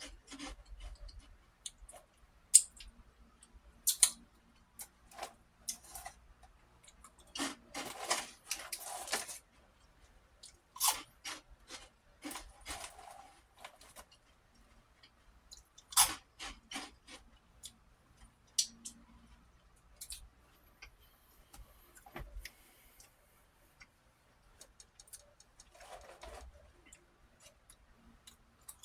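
A person crunching and chewing crisp prawn crackers close to the microphone: irregular sharp crunches with short pauses between bites.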